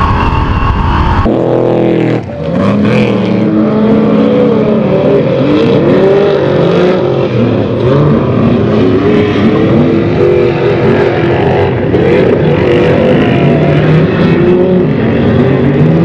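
Unlimited off-road race truck's engine running hard under racing load, its pitch rising and falling constantly as the throttle is worked over rough desert course. There is a brief drop in the sound about two seconds in.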